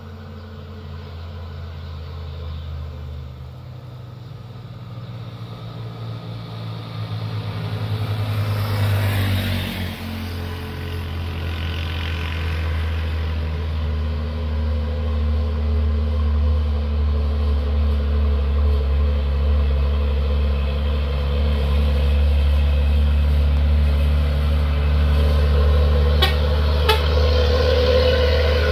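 Heavy diesel truck engine running under load, its deep drone growing steadily louder as it draws nearer. Another vehicle passes by about nine seconds in, and there are two short clicks near the end.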